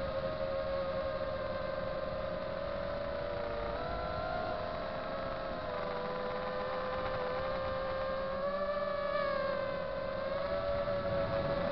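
Eachine LAL5-style FPV quadcopter's motors and propellers whining steadily in flight. The pitch dips a little about four seconds in and rises and falls again around eight to ten seconds as the throttle changes.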